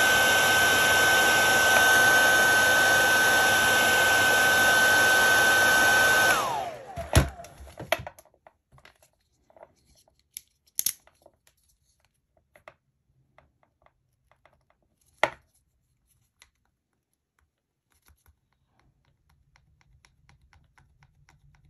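Hairdryer blowing steadily with a high motor whine while warming the servo's refitted label. About six seconds in it is switched off and the whine falls away as the motor runs down. A few light clicks and knocks follow.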